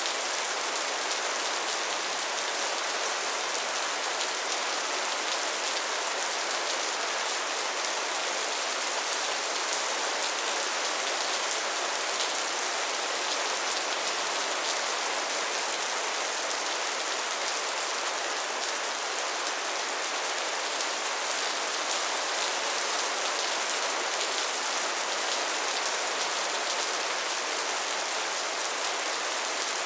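Soft steady rain falling on a surface, an even hiss with fine patter of drops and no change in strength.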